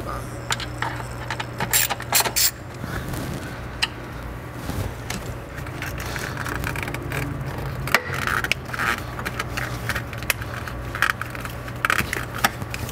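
Small metal parts and a hand tool clicking and scraping irregularly as the Torx screw and metal support clamp on a stock charge tube are worked loose and taken off, over a steady low hum.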